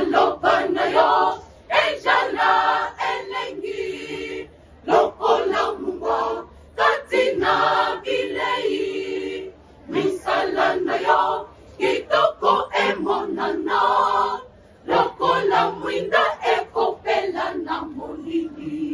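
Mixed choir of women and men singing a cappella, in phrases a few seconds long separated by short breaths.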